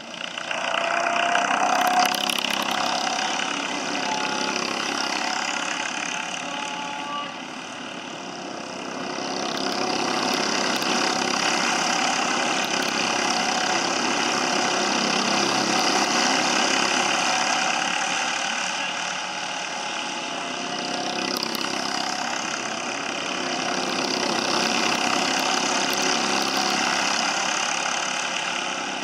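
Several racing kart engines running hard as a pack of karts passes. A dense, steady engine drone swells and fades as the karts come by, with a faint gliding engine pitch.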